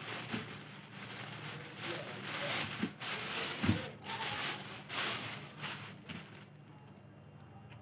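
Thin plastic shopping bags rustling and crinkling as hands rummage in them and pull out snack packets; the crinkling stops about six and a half seconds in.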